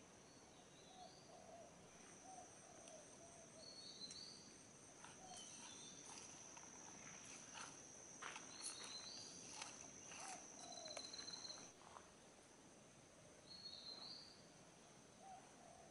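Faint forest ambience: a steady high-pitched insect drone that cuts off about three-quarters of the way through, with short rising bird chirps now and then and lower warbling calls. A few soft clicks fall in the middle.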